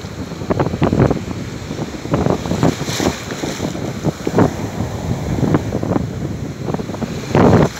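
Shallow surf washing and foaming around the shore, with wind buffeting the microphone in irregular gusts.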